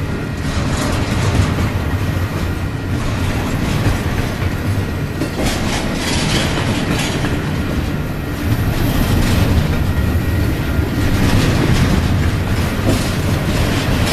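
Double-stack intermodal freight train rolling past: a steady rumble of the well cars, with rapid clicking of steel wheels on the rails.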